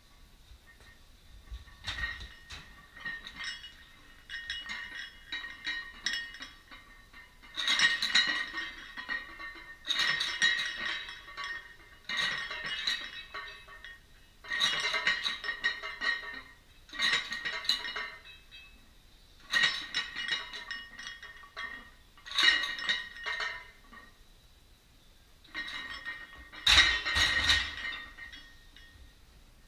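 Iron weight plates clinking and rattling on a loaded barbell's sleeves during a set of back squats, a burst of metallic clatter roughly every two to three seconds. Near the end a louder, heavier clank as the bar goes back onto the squat rack.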